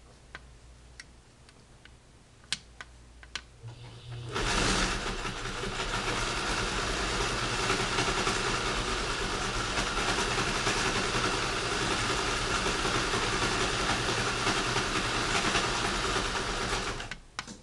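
The replacement motor of a 1959 Singer Spartan sewing machine runs the machine at a steady speed under a modern foot pedal. A few light clicks come first, then the machine speeds up quickly about four seconds in, runs evenly, and stops suddenly just before the end.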